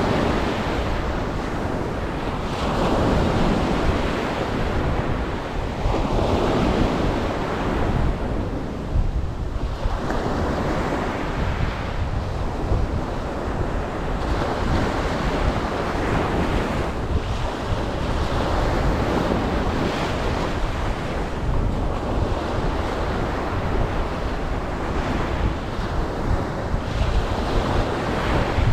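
Ocean waves breaking on a beach, the wash of surf swelling and fading every few seconds.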